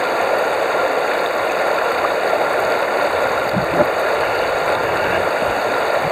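Stream water flowing over a gravel bed, heard from a camera submerged in the current as a steady rushing noise, with a faint knock or two near the middle.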